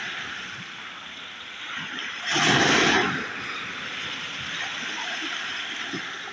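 Sea surf washing steadily on the shore, with one wave breaking more loudly for just under a second about two and a half seconds in.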